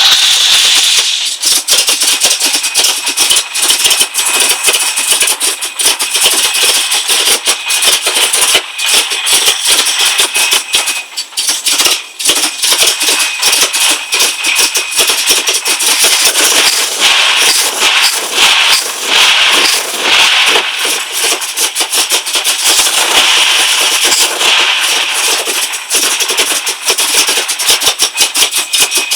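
Rover V8 engine with a Weber carburettor and Megajolt ignition idling roughly: a loud, uneven clatter that surges and dips irregularly, the lumpy idle the owner is showing.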